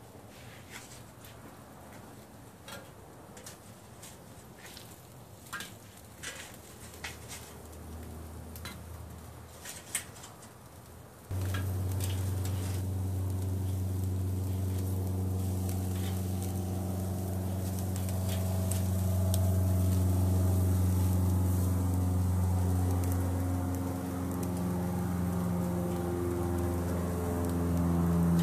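Chicken sizzling faintly on a charcoal kettle grill, with tongs clicking against the grate now and then. About eleven seconds in, a much louder steady low drone with held tones changing in pitch cuts in abruptly and stays.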